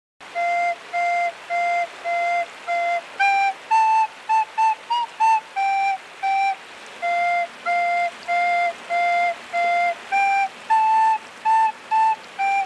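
Soprano recorder playing a simple tune in short separate notes: a run of repeated notes on one pitch, a quicker phrase a little higher, then the repeated notes again.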